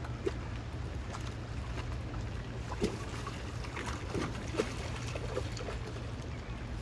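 Steady low wind rumble on the microphone, with scattered faint taps and small splashy sounds of water.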